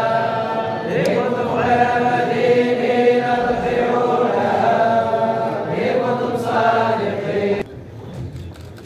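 A large group of men chanting together in unison, a drawn-out Sufi religious chant, which cuts off suddenly near the end.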